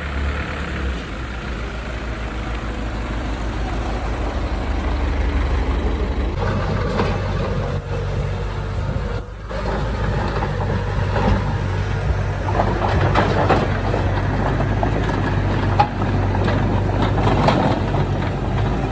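Diesel engine of heavy earthmoving machinery running steadily, its note stepping up about six seconds in as it works harder, with irregular clanking and scraping of metal and soil after that.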